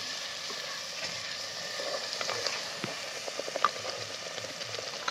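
Ground onion-and-spice masala paste sizzling in hot oil in a pot, with a splash of water just added, stirred with a wooden spatula. A steady sizzle runs throughout, with scattered small pops and ticks and one slightly louder click a little past halfway.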